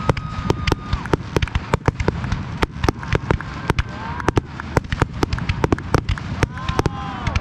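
Aerial fireworks in a dense barrage: a rapid string of sharp bangs and cracks, several a second, over a continuous low rumble. A steady whistle sounds through the first second.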